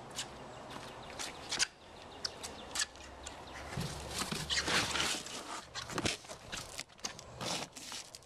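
Shoes tapping and scuffing on stone paving while a large cardboard box is handled. Irregular taps and scrapes, with a longer rustling scrape about four to five seconds in.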